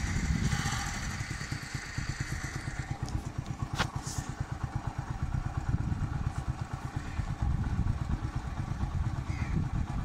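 Small motorcycle engine running while being ridden, a fast, steady low-pitched putter of firing pulses. A single sharp click sounds about four seconds in.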